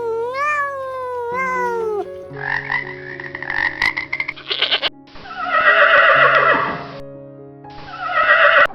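Background music with farm animal calls over it: one call gliding up and down in pitch over the first two seconds, then three longer, rough-sounding calls, the loudest in the middle and near the end.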